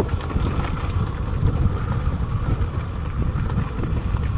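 Motorcycle ridden over a rough dirt track, with wind buffeting the microphone over the bike's running engine and road rumble.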